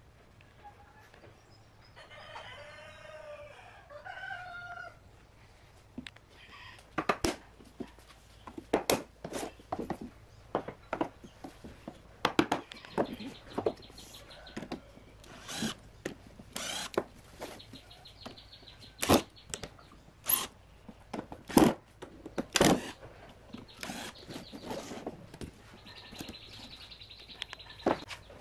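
A rooster crows once about two seconds in. Then come sharp wooden knocks and clatter of blocks being handled on the bench, with a cordless drill whirring in several short runs as it drives screws into the jig.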